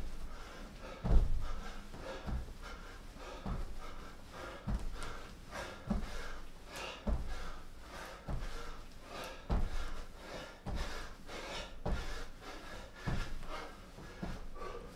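Feet thudding onto an exercise mat about once every 1.2 seconds during a set of bodyweight jump squats, each landing with a hard breath, the loudest landing about a second in.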